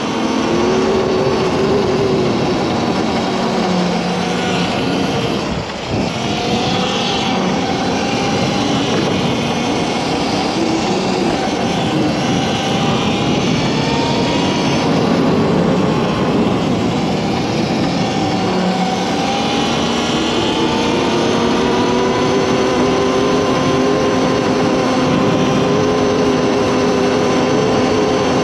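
Electric dirt bike's QS138 V3 mid-drive motor, run by a BAC8000 controller, whining smoothly under way. Its pitch rises and falls with throttle and speed over a steady rush of riding noise, with a brief drop about six seconds in.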